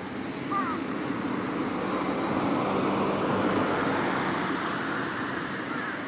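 A road vehicle passing, its tyre and engine noise swelling to a peak midway and fading again. A brief high chirp sounds about half a second in.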